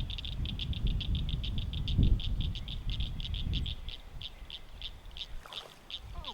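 A frog calling: a long train of high-pitched clicks that starts fast and gradually slows. Wind buffets the microphone for the first few seconds.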